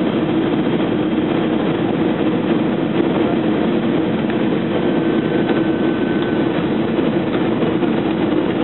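Steady cabin noise inside an Airbus A320 descending on approach: engine and airflow noise through the fuselage, an even rushing drone that holds level throughout.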